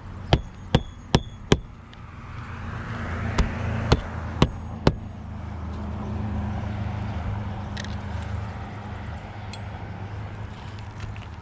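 Magnetic roofing hatchet driving roofing nails through asphalt shingles: four quick strikes about 0.4 s apart, then four more a couple of seconds later. A steady low rumble runs underneath and swells in the middle.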